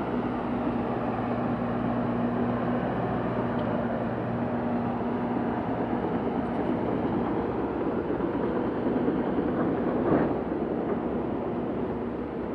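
Diesel engines of heavy earthmoving machinery running steadily on a fill-and-compaction site, with a low steady hum that fades about halfway through and a brief louder surge about ten seconds in.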